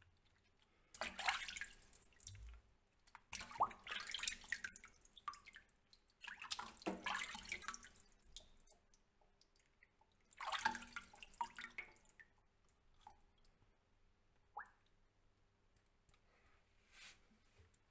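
Water splashing and dripping into a stainless steel sink as raw quail are rinsed by hand, in four bursts of splashing followed by a few scattered drips.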